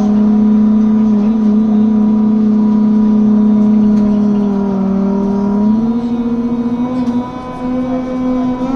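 BMC Procity city bus under way, heard inside the cabin. Its fans give a loud, steady humming over the Cummins ISB6.7 diesel. The hum drops slightly in pitch at the start, rises again about six seconds in and drops once more near the end.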